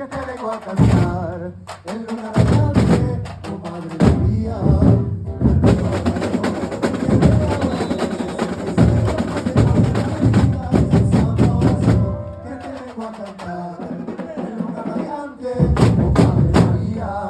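Carnival comparsa drum section (batería) playing together in dense, rhythmic percussion, with brief breaks. It eases off about two-thirds of the way through and comes back in hard near the end.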